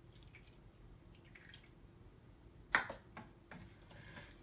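Faint wet dripping and stirring as glue is poured into, and mixed with a plastic stick into, a glass bowl of water and baking soda. A sharp tap a little under three seconds in is the loudest sound, followed by a few softer knocks.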